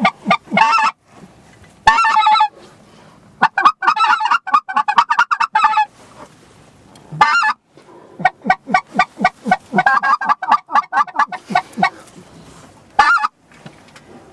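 Loud honking waterfowl calls, given in rapid series of short notes that come in bursts separated by brief pauses.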